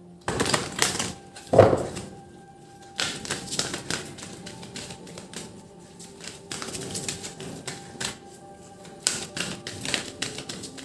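A deck of angel cards being shuffled by hand: quick runs of papery clicks and slaps in clusters, with one louder knock about a second and a half in. Soft background music plays underneath.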